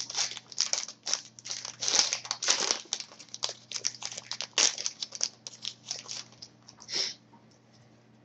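Hockey trading cards being handled and flipped through by hand: a fast run of crinkling, rustling strokes that stops about seven seconds in.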